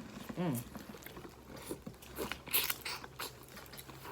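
Close-up eating of Dungeness crab: chewing and crunching with scattered small clicks and cracks of crab shell, a short hum about half a second in, and a flurry of crisp crunches a little past the middle.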